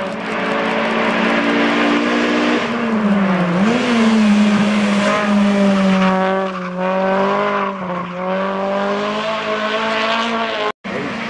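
Honda Civic hatchback hill-climb race car's four-cylinder engine at high, steady revs as the car approaches and passes at full throttle. The pitch dips and comes back up about three and a half seconds in, and dips briefly twice more a few seconds later. The sound cuts out for an instant near the end.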